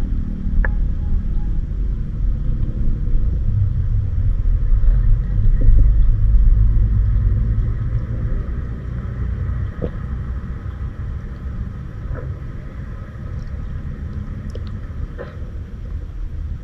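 Low underwater rumble of moving water heard through a submerged camera's housing, swelling a few seconds in and easing off, with a few faint scattered clicks.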